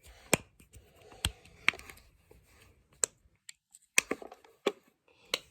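Simple Dimple fidget toy's push-buttons being pressed, giving a string of separate sharp clicks at an irregular pace, about one every half second to second.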